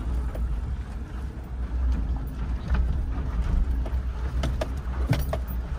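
Suzuki Jimny driving slowly over a bumpy grassy track, heard from inside the cabin: a steady low engine and drivetrain rumble with a few scattered knocks and rattles as it goes over the ruts.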